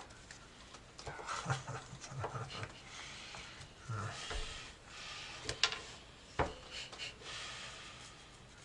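Playing cards being handled on a table: scattered light taps, clicks and rustles, with a couple of sharper ticks near the middle.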